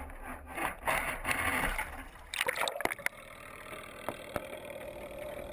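Water sloshing and gurgling around a camera on a crab trap as it is lowered into the sea. About two and a half seconds in there is a louder splash as the camera goes under. After that the sound turns muffled and dull, with a few faint knocks.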